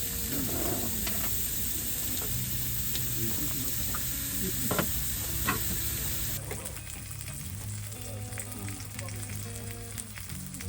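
Meat sizzling as it fries in a pan, a dense hiss that eases off about six seconds in, with a couple of sharp clicks near the middle.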